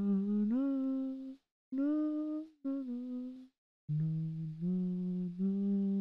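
A lone voice quietly singing a slow, wordless tune in held notes that step up and down, in three short phrases with brief silent gaps between them.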